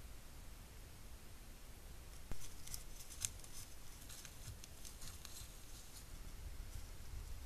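Dry leaf litter crackling and rustling under the footsteps of a large animal passing close by: a sharp click a little over two seconds in, then a run of crisp crackles for about three seconds, over a low steady rumble.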